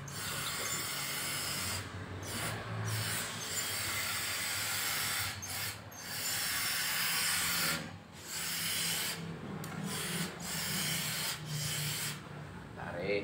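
Hand iron sliding back and forth over a t-shirt on a cloth-covered ironing board: a rasping rub in strokes of one to a few seconds, with short breaks between them.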